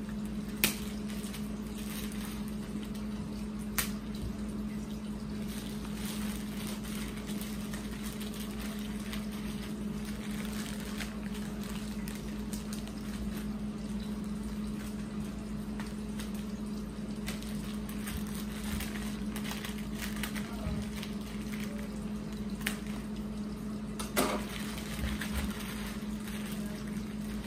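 Crinkling plastic wrap and seriously sticky packing tape being worked loose from a plastic-wrapped speaker, crackling, with a few sharp clicks and a steady low hum underneath.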